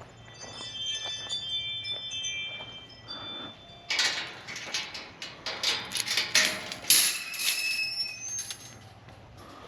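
Several overlapping ringing tones at different pitches, chime-like, over the first few seconds, then a louder run of irregular clattering and rustling knocks that dies down near the end.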